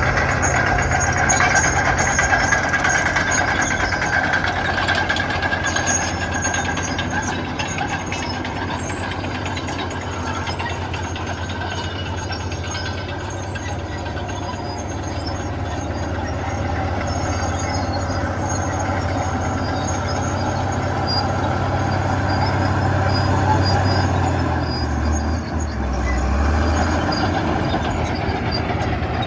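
Komatsu D61EX crawler bulldozers' diesel engines running loud, a steady low drone with thinner high tones above it. About 25 seconds in, the engine note drops lower.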